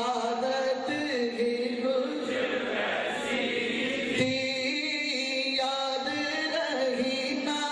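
A man singing a naat, an Urdu devotional song, into a microphone, drawing out long, wavering notes.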